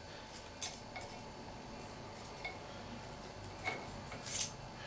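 A spanner working the valve-clearance adjuster on the rocker arm of a Simson AWO 425 T's cylinder head: a few faint, light metallic ticks and clinks, and a short scrape near the end.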